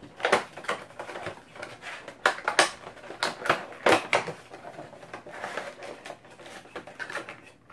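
Cardboard Funko Dorbz figure box being opened by hand and its clear plastic insert pulled out: an irregular run of clicks, crackles and rustles of cardboard and plastic packaging, busiest in the first few seconds.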